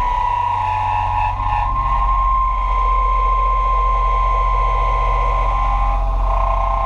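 Hurco BMC 2416 CNC machining center milling a steel slab, with a steady high cutting tone over a constant low machine hum.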